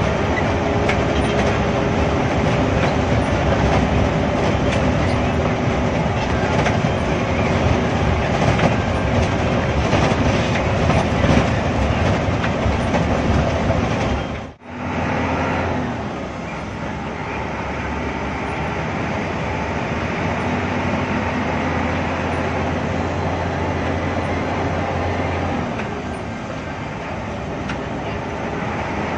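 Hino AK8 bus's turbo-diesel engine running under way, heard from inside the cabin together with body rattles and wet-road noise. About halfway through the sound drops out for a moment and comes back as a steadier, somewhat quieter drone with a low hum.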